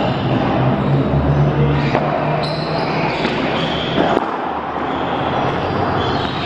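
A few sharp ball strikes echoing in a large indoor sports hall, the clearest about four seconds in, over a steady low hum and the hall's reverberant background.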